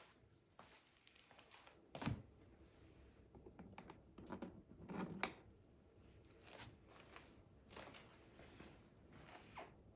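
Faint handling sounds of a small 3D-printed plastic label tag being taken hold of and turned on the front of a clear plastic filament dry box: scattered light clicks and rubbing, the sharpest click about two seconds in and a cluster of them around four to five seconds.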